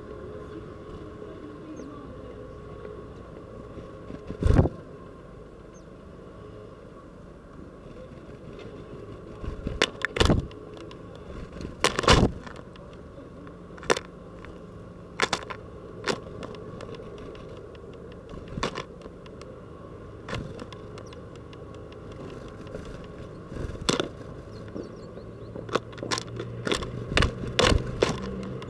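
Great tits landing on and working at a window-mounted feeder ring, making sharp taps, knocks and scrapes at irregular intervals over a steady low background noise. The taps come thick and fast near the end.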